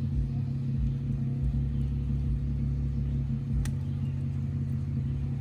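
Jeep driving at a steady pace: an even engine drone with low rumble, and a single sharp click a little past halfway.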